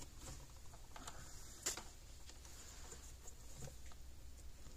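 Faint scattered clicks and handling sounds as spade connectors on the wires are pushed onto the terminals of a replacement capacitor, the sharpest click about a second and a half in.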